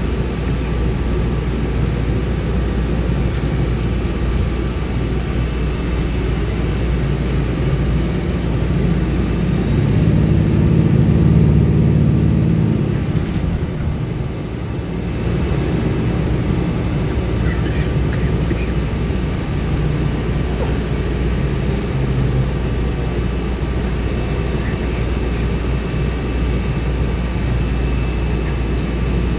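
Shuttle bus underway, heard from inside: a steady engine hum and road noise, the engine getting louder about nine seconds in and easing off around fourteen seconds.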